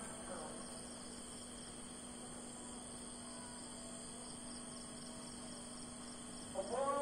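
Crickets chirping, with faint evenly repeating pulses, over a steady low hum. Near the end a muezzin's voice comes in, singing the next phrase of the dawn call to prayer.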